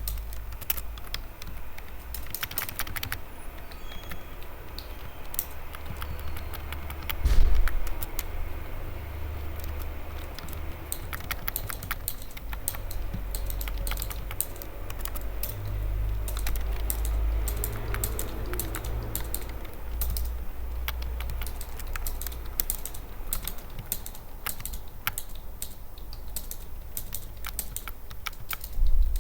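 Typing on a computer keyboard: irregular runs of key clicks, over a steady low rumble, with a louder thump about seven seconds in.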